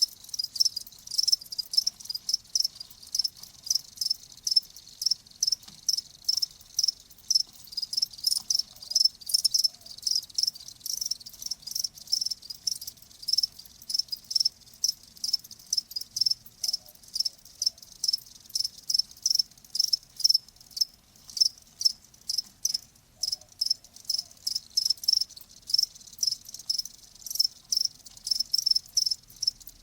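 Crickets chirping: short, high-pitched chirps repeated evenly, a few each second.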